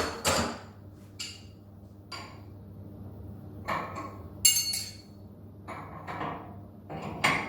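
Scattered metallic clinks and knocks of hand tools on a CNC router spindle as its cutter is swapped for a 3 mm flat end mill, over a low steady hum.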